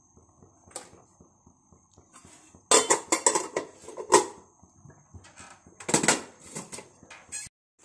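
Metal cookware and utensils clinking and clattering: a quick run of sharp knocks a little under three seconds in, and another shorter run around six seconds.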